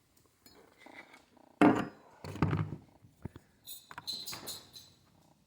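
Metal parts of a chainsaw being handled while the bar and chain are fitted: uneven clinks, knocks and rattles, with a short metallic ring about four seconds in.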